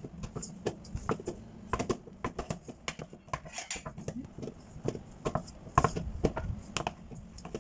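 Hands kneading dry, crumbly flour dough in a stainless steel mixing bowl: fingers and lumps of dough knock and tap irregularly against the metal.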